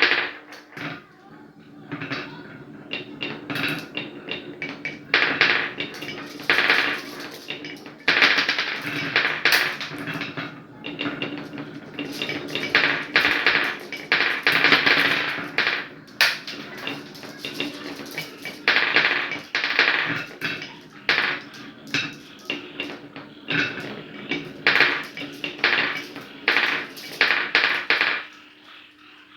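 Marbles rolling and clattering down a wooden marble run track: rapid runs of clicks and rattles that swell and fade in bursts every second or two.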